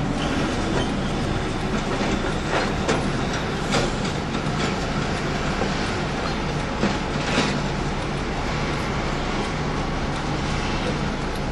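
Container top lifter's diesel engine running steadily under load as it sets a large container down onto a flatbed truck trailer, with a few sharp knocks from the container handling, mostly in the first two-thirds.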